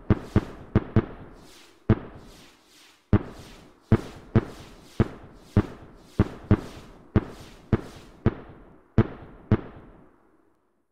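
Fireworks bursting: a rapid series of nearly twenty sharp bangs, each trailing off in a short echoing tail, spacing out and stopping about ten seconds in.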